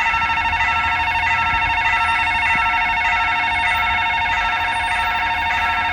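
Railroad level crossing warning bell ringing without a break: a rapid, high electronic ding that warns that a train is approaching.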